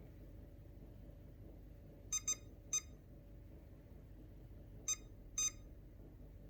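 ILIFE V7S robot vacuum beeping while docked on its charging base: five short, high-pitched beeps, three in quick succession about two seconds in, then two more about three seconds later. Beeping on the charger is the unexplained fault the owner is asking about.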